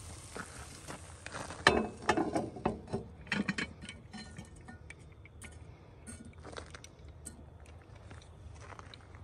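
Metal clinks and clanks of a cast-iron camp Dutch oven and its lid being handled with a metal lid lifter, a burst of knocks from about a second and a half to four seconds in, then scattered lighter ticks.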